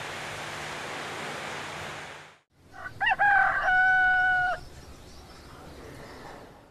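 A rooster crows once, starting about three seconds in: a short rising opening, then a long held note. Before it, a steady hiss cuts off into a moment of silence.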